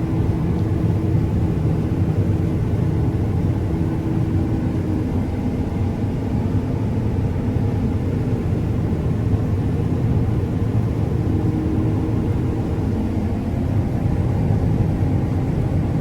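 A vehicle engine running steadily, a low, even rumble.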